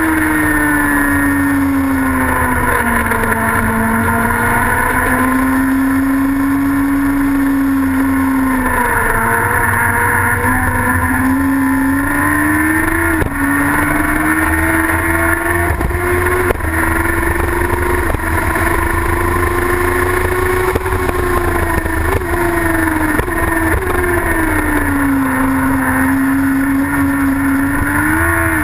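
Racing sidecar outfit's engine running hard on track, its pitch dropping and climbing again several times as the outfit slows for corners and accelerates out of them.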